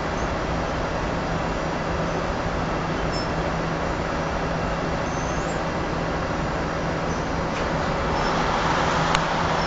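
Steady machinery running noise with a constant low hum, swelling slightly near the end, followed by a couple of sharp clicks.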